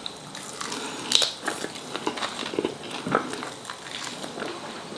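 A person biting and chewing a chicken wing close to the microphone, with irregular small crunches and clicks.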